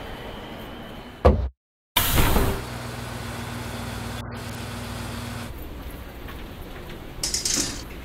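Train doors sliding shut with a sudden loud thud about a second in. After a short cut comes a low steady engine hum, then a brief clatter of coins dropping into a bus fare box near the end.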